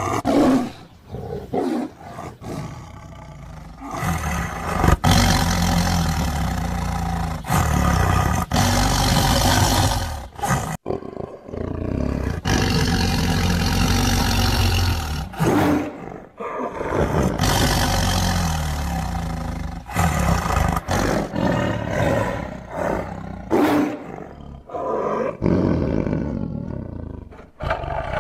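Tiger roaring over and over: a run of long, loud roars, each a few seconds, with short breaks between them.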